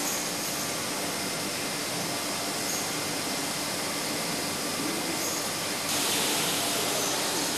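Steady machinery noise of a beer-keg handling line, a constant whir and hiss with a faint hum. The hiss grows louder about six seconds in.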